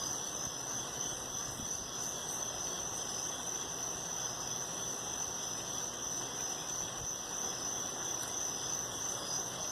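Steady night chorus of crickets, a continuous high trill, over an even low hiss.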